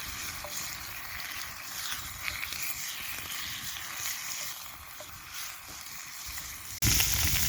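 Bacon frying in a pan, a steady sizzle; the sizzle jumps suddenly louder near the end.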